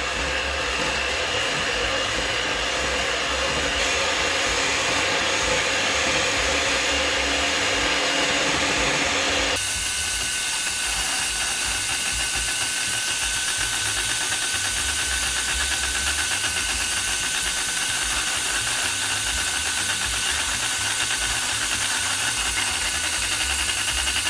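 Electric mixer running continuously, its beaters whipping instant coffee, sugar and hot water into dalgona foam. A steady motor whine and hiss, whose tone shifts abruptly about ten seconds in.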